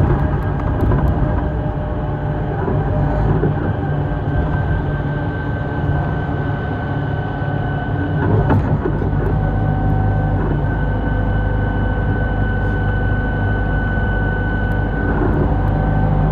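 Inside a moving city bus: engine and road rumble with small clicks and rattles, and a steady high whine that sets in about halfway and stops near the end.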